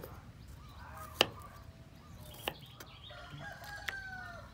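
A kitchen knife strikes a wooden chopping board three times, each a sharp knock about a second and a half apart, as garlic is sliced. A chicken calls in the background near the end.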